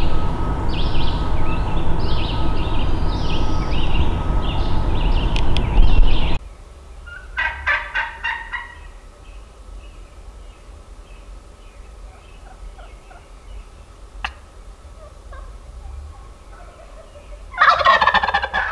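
A steady rushing noise with songbirds chirping over it cuts off abruptly about six seconds in. Then a wild turkey gobbler gobbles twice, once a little after seven seconds and again, louder and falling in pitch, near the end.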